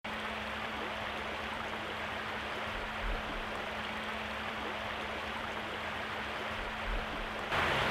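Steady rush of river water flowing through a resistance board weir, with a faint steady hum underneath; it gets louder shortly before the end.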